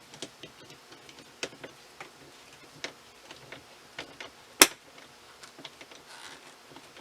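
Irregular small clicks and taps of a hand tool tightening the hose clamps on a sump pump's rubber discharge coupling, with one sharp, louder click or knock about four and a half seconds in.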